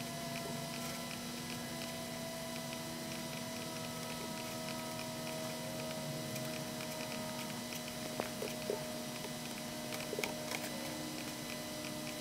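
Soft computer mouse clicks over a steady low hum with faint held tones, a few sharper clicks in the second half.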